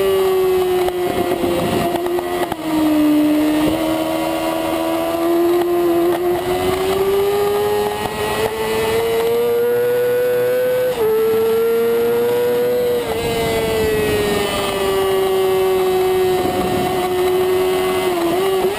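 Middleweight supersport race bike's engine running hard at high revs, recorded onboard with wind rushing over the fairing. The pitch rises and falls slowly through the corners, with an upshift partway through and a brief dip near the end.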